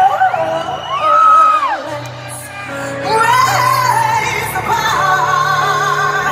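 Live band with a female lead singer in a large arena: she sings long, soaring notes, one arching up and down about a second in and a long held note with vibrato near the end, over the band's steady bass and drums.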